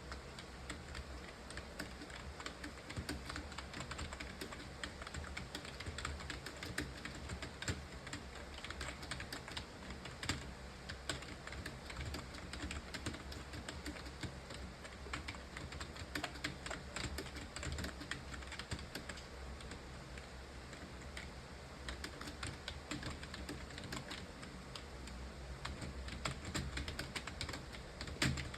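Continuous fast typing on a computer keyboard: a steady, uneven stream of key clicks, with a louder key strike near the end.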